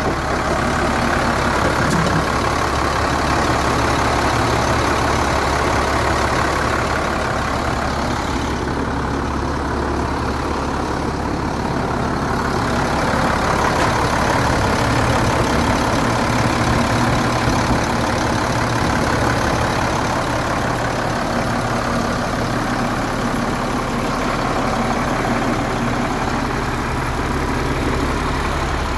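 International DT466E inline-six diesel in a 1998 International 4900 truck, idling steadily.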